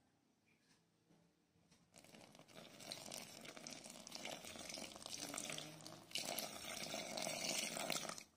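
Warm water poured in a thin stream from a glass measuring beaker into flour in a glass bowl. It starts about two seconds in, grows louder over the last two seconds as the water pools on the flour, then cuts off suddenly.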